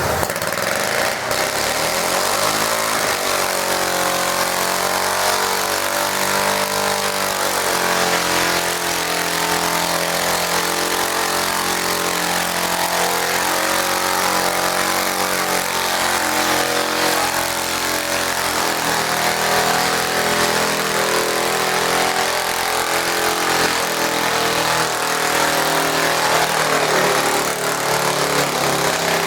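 Garden tractor engine running hard during a sled pull, its pitch wavering for the first several seconds and then holding steadier.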